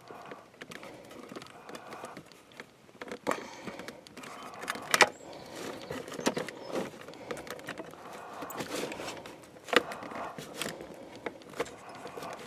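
Irregular clicks, rattles and knocks of hands working the power sliding door's cable spool and drive assembly, the cables being pressed into place, with two sharper knocks about five and ten seconds in.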